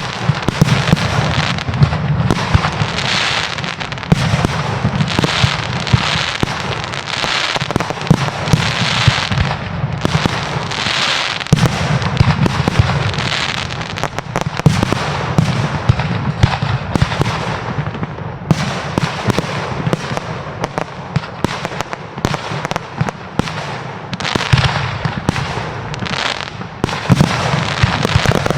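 Fireworks display: a dense, continuous barrage of bangs and crackling, many reports a second. It thins out somewhat about two-thirds of the way through, then builds again near the end.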